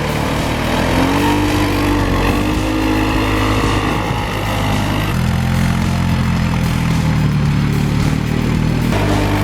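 Snowmobile engine running steadily, its pitch shifting a few times as the throttle changes.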